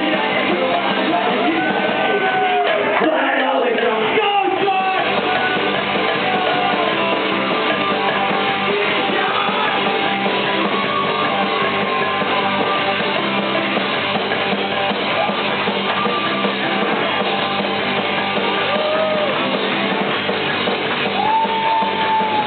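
Rock music with guitar and singing voices, playing steadily and fairly loud.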